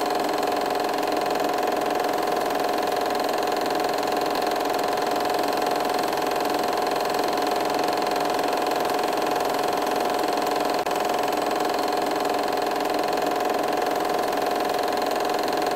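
Film projector running steadily, a continuous mechanical whirr with a held hum, cutting off abruptly at the end.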